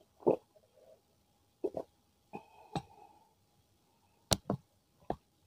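Close-up gulps of a drink being swallowed from a mug, followed by a few sharp clicks about four and a half and five seconds in, the first the loudest.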